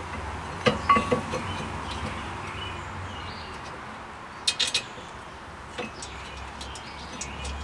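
Sharp metal clinks and taps as a steel brake caliper bracket and its pad clips knock against the hub and a new rotor while being fitted. There are a few clinks about a second in, a quick cluster of three about four and a half seconds in, and one more a little later.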